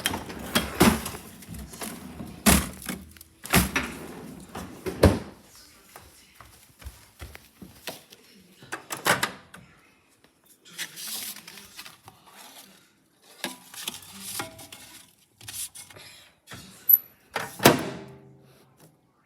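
A run of irregular thumps and knocks on hard surfaces, with a few short stretches of rattling clatter in between.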